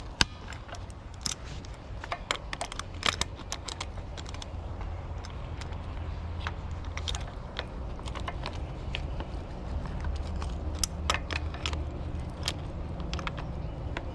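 Excavator's diesel engine running with a steady low hum, a little louder after a few seconds, and many scattered light metallic clinks and rattles.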